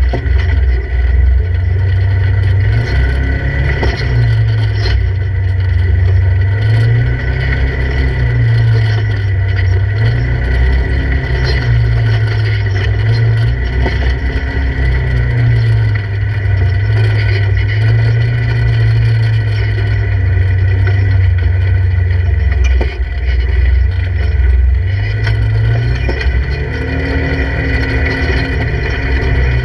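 Polaris RZR 1000 side-by-side's twin-cylinder engine running, heard from inside the open cab; the revs rise and fall over and over as the throttle is worked at crawling pace over rocks.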